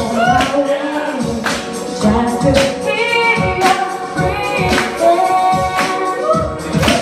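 A woman singing into a handheld microphone over a backing track, with a drum hit about once a second.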